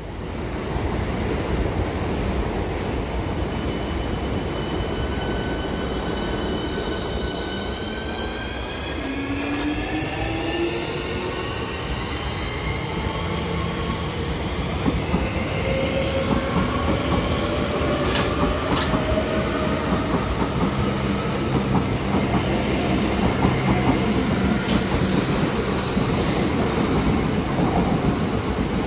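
Third-rail electric multiple units: the traction motors whine, the whine rising in pitch as a train gathers speed. Then a train runs past with steady wheel-and-rail noise and a low hum, with two sharp clicks a little past halfway.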